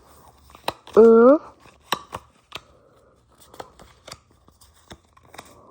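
Sharp clicks and snaps of Pokémon trading cards and their packaging being handled, coming a few times a second. About a second in there is a short voiced hum, rising slightly in pitch, which is the loudest sound.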